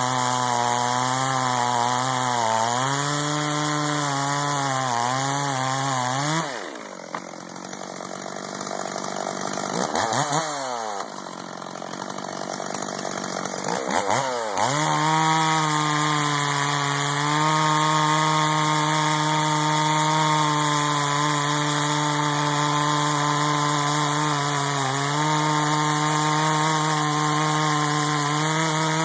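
Stihl MS440 two-stroke chainsaw with a 30-inch bar cutting through a large log round at full throttle, its pitch wavering under load. About six seconds in it drops to idle, gets a short blip of throttle, then revs back up around fourteen seconds and runs steadily at full throttle through the next cut.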